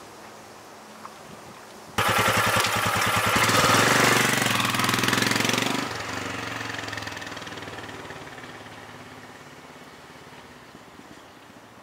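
Royal Enfield Himalayan's 411 cc single-cylinder engine running, cutting in abruptly about two seconds in with distinct firing pulses. It grows louder as the bike pulls away, drops off after a few seconds and fades steadily into the distance.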